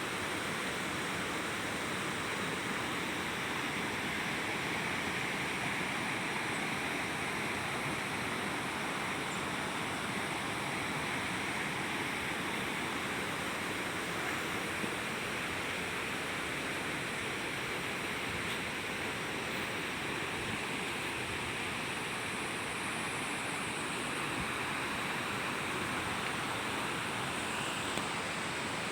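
Steady rush of falling water from a waterfall, an even noise that holds throughout.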